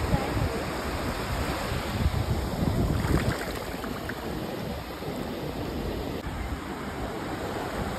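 Small sea waves washing in over wet sand and around bare feet in the shallows, a steady rush of surf that swells louder for about a second, two seconds in. Wind rumbles on the phone's microphone.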